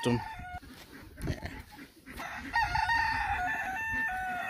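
A rooster crowing: one long call of about two seconds, starting about halfway in, that moves in steps in pitch and drops at the end. A brief call comes just at the start.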